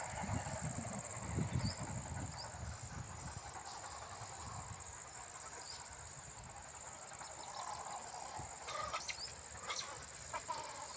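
Insects chirring steadily at a high pitch with a fast, even pulse. Over it come a few soft low thumps in the first two seconds and scattered short faint chirps and calls, more of them about nine to ten seconds in.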